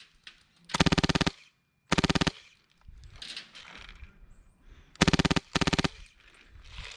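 Airsoft gun firing four short full-auto bursts of rapid shots, two around the first two seconds and two close together about five seconds in. Fainter rustling and movement noise fills the gaps between the bursts.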